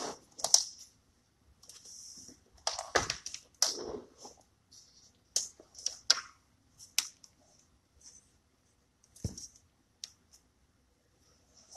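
Handling noise close to the microphone: scattered taps and clicks with short hissy rustles, irregular and separated by quiet gaps.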